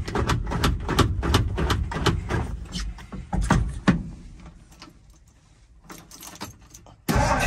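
Irregular clicks and rattles with keys jingling in the ignition, dying away about four seconds in. Just before the end, the cold 1964 Ford F100's six-cylinder engine starts and runs loud.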